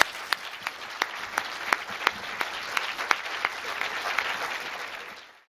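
Audience applause, thinning into a few distinct claps about three a second, then fading out near the end.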